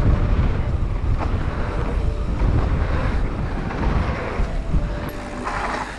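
Wind buffeting a mountain biker's action-camera microphone at speed, over the low rumble of tyres rolling on a packed dirt trail.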